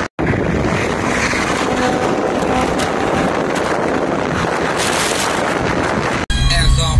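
Wind rushing over the microphone and road noise at highway speed, heard through an open car window. About six seconds in it cuts abruptly to hip-hop music with heavy bass.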